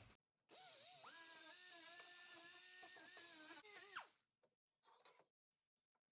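A small handheld power tool deburring the cut edge of a sheet-metal patch panel: it spins up, runs with a steady whine for about three and a half seconds, then winds down.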